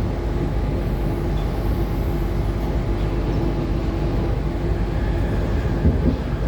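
Tangara electric multiple unit running along the track, heard from inside the carriage: a steady low rumble of wheels on rails with a steady hum over it, and a couple of knocks about six seconds in.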